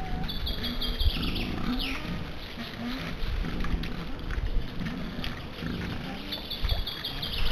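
Wild boar piglets grunting, short low grunts over and over. A songbird sings a short phrase of rapid repeated high notes at the start and again near the end.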